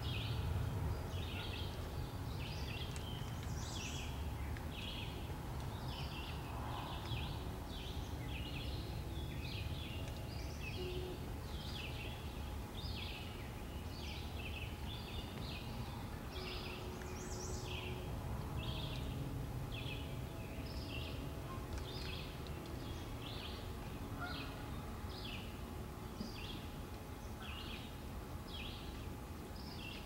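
Short, high chip calls from a small animal, repeated steadily about twice a second without a break, over a low outdoor rumble.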